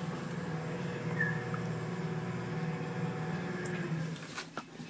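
Residential elevator running with a steady motor hum and a thin high whine, stopping about four seconds in, followed by a few clicks.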